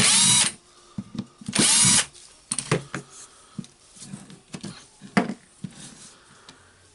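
Cordless drill motor spinning in two short bursts of about half a second each, the second about a second and a half after the first, then light clicks and knocks of handling.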